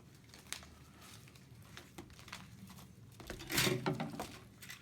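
Pull cord being drawn out of a drapery traverse rod: a few faint clicks, then a rustling scrape lasting about a second, starting about three and a half seconds in.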